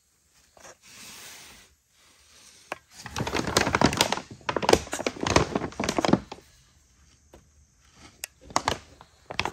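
Brown paper crinkling and rustling as a cast exhaust manifold is shifted and turned over on it, in a dense crackling run about three seconds in, followed by a few sharp knocks near the end.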